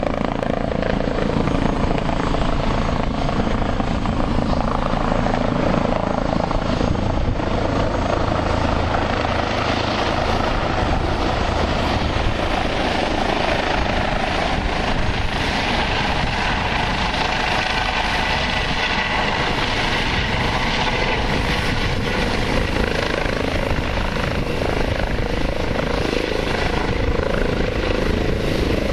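Eurocopter EC135 helicopter flying in close, hovering and setting down on the landing pad; its rotor and turbines run loud and steady throughout.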